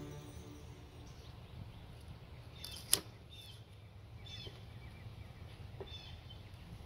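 Quiet outdoor background with a few faint, short bird chirps and one sharp click about three seconds in.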